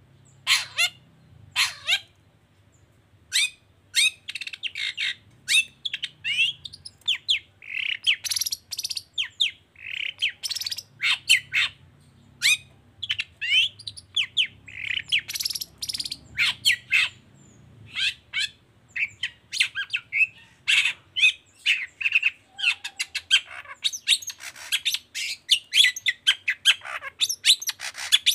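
Long-tailed shrike (cendet) singing a fast, dense string of short, sharp chattering notes and squawks, several each second, with a few brief gaps.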